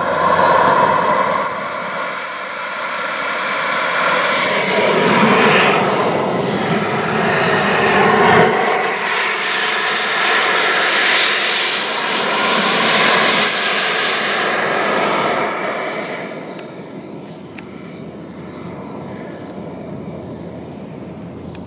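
Small turbine engine of a radio-controlled model jet running while it taxis, a high whistle gliding up and down with the throttle over a rushing exhaust noise. The sound drops markedly about sixteen seconds in.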